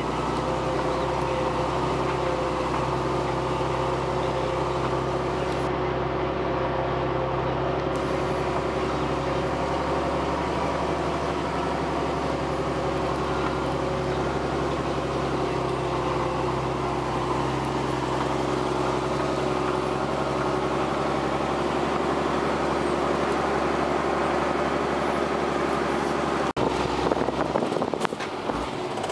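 Tractor engine running steadily under way, heard from inside the cab as an even, unchanging drone. Near the end the sound cuts to a rougher, more uneven engine and cab noise.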